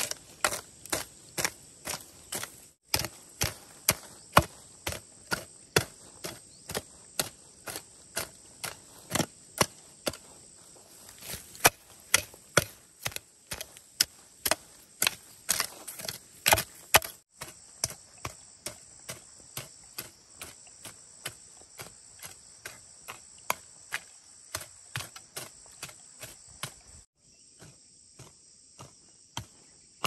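Hand hoe chopping into moist soil and weeds, a sharp strike about two to three times a second, with insects buzzing steadily in the background. Near the end the strikes thin out and the insect buzz is left.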